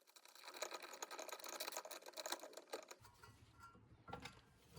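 Faint, rapid clicking of a ratcheting hand tool as a bolt is tightened, stopping about three seconds in.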